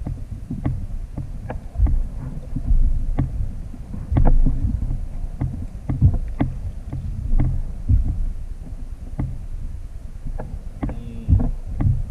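Small kayak rocking on open water: a steady low rumble of wind on the microphone and water against the hull, with irregular light knocks and taps, one or two a second.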